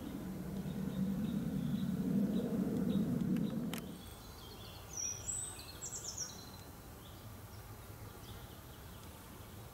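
Outdoor countryside ambience: a low hum for the first four seconds that stops suddenly, then a few bird chirps about five to six seconds in over faint insect ticking.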